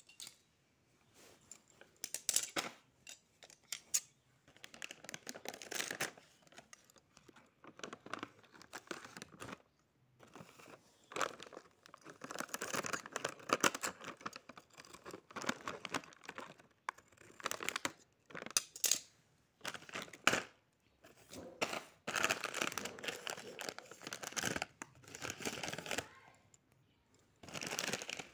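Shiny plastic potato-chip packets crinkling and rustling as they are handled, in irregular bursts with short pauses.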